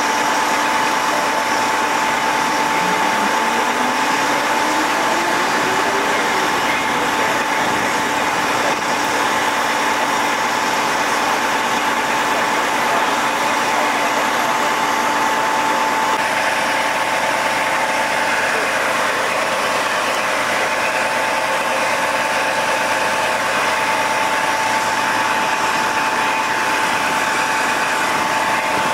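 Steady hum of an idling engine with a constant high whine over it; a few seconds in, a lower pitch rises steadily for a few seconds, as something speeds up.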